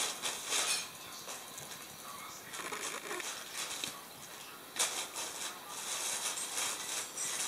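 A thin plastic bag rustling and crinkling in irregular bursts as a kitten moves around inside it, with the sharpest crackles about half a second in and again near the five-second mark.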